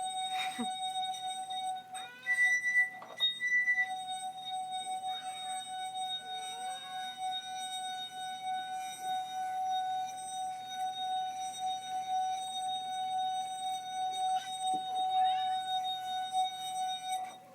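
A steady, unbroken high tone, like a continuous beep or ring, sounds throughout. A second, higher tone joins it briefly about two seconds in. Faint kitten mews rise and fall now and then.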